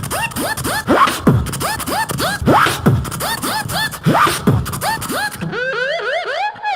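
Vocal beatboxing: a fast beat of short rising chirps over deep falling bass sweeps and clicks. About five and a half seconds in it changes to a wavering, rising-and-falling siren-like wail made with the voice.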